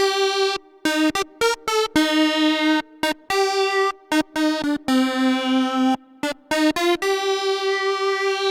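Vector digital synthesizer playing a single-voice melody in the middle register. Held notes pulse in loudness several times a second, and runs of quick short notes come between them, with brief gaps between phrases.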